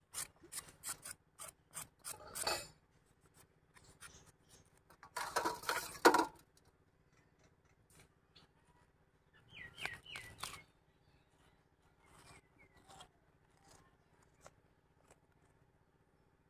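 Knife and metal coring tool scraping and cutting pointed gourds while the seeds are hollowed out, with clicks of metal tapping a steel plate. The scraping is loudest about five to six seconds in.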